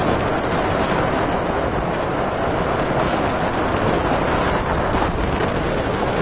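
Hurricane eyewall wind with wind-driven rain: a loud, steady rushing noise that buffets the microphone without letting up.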